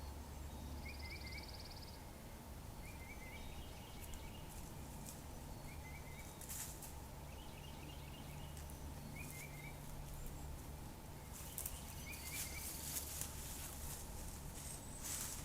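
A small bird calling a short chirped phrase again and again, about every two seconds, with a brief buzzy trill about a second in. A steady low rumble and a few faint rustles lie underneath.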